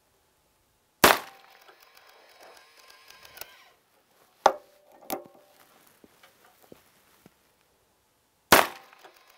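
Two gunshots from a Taylor's & Company Cattleman single-action revolver firing .44 Special handloads, about seven and a half seconds apart, each followed by a long echo. Between them come two lighter metallic clacks as the gun is handled in its machine rest.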